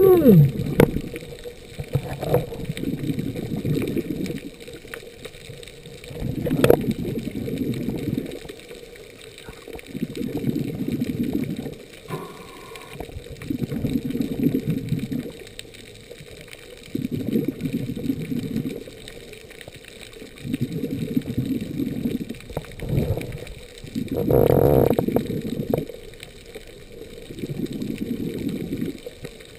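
Scuba diver breathing through a regulator underwater. A rush of exhaled bubbles comes about every three and a half seconds, eight times, with quieter gaps for the inhales between.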